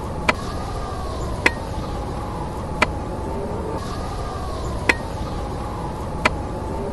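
Steady hiss with a faint, slowly wavering tone and a sharp click about every one to two seconds, five clicks in all.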